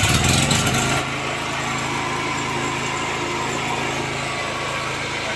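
A 3 kW petrol generator's 210 cc four-stroke OHV engine, just started on its electric starter. It runs unevenly and louder for about the first second, then settles into a steady even run.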